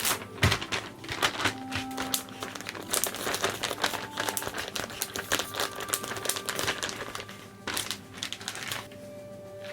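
Plastic packaging being handled and crinkled, a dense run of irregular crackles that thins out near the end.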